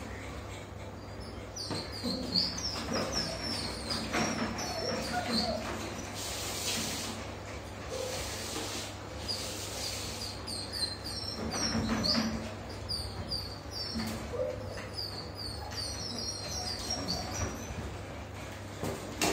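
Small birds chirping in quick runs of short high notes, in two spells with a lull in between, over a steady low hum.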